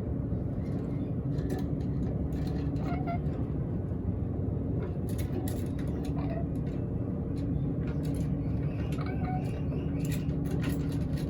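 A steady low rumble, like a running motor or traffic, with scattered sharp clicks and a few brief faint chirps over it.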